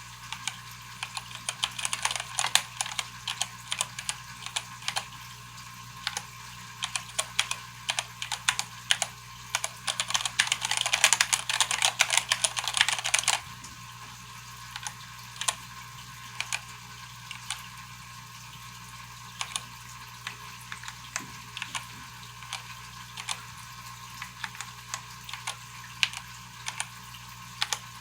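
Keys of a Keychron K8 mechanical keyboard with Gateron switches clacking: fast, dense typing for roughly the first half, which stops abruptly, then slower, scattered single key presses.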